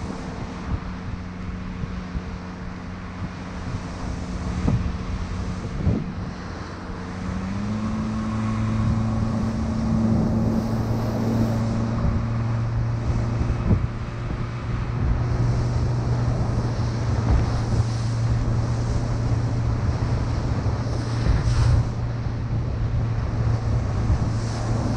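Boat engine running under way, stepping up in pitch and getting louder about seven seconds in as the boat speeds up, with wind buffeting the microphone and water splashing against the hull.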